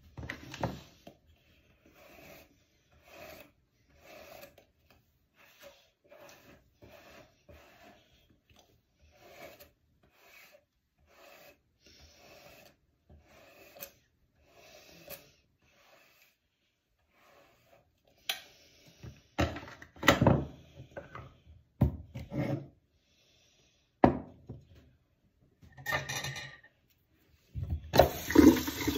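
Long wet hair being brushed through in soft rasping strokes, about one a second, then louder, irregular rubbing and handling noises over the last ten seconds.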